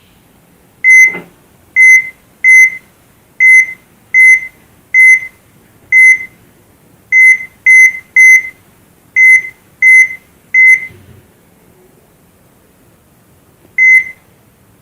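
Heart monitor (ECG) beeping: short high-pitched beeps on one tone, about thirteen of them at uneven intervals, then a pause of about three seconds before a single last beep near the end.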